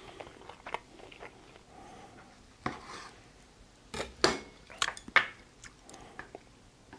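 Kitchen knife and chopsticks knocking against a wooden cutting board as they are handled and set down: a handful of sharp knocks, most of them in the second half.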